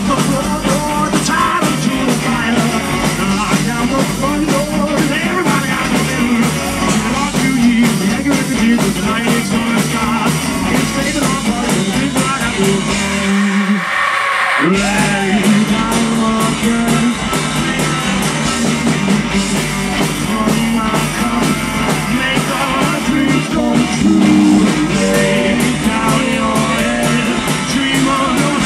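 Live band playing an upbeat rock-and-roll number with upright bass, drums, electric and acoustic guitars, and singing. About halfway through, the bass and drums drop out for about a second, then the full band comes back in.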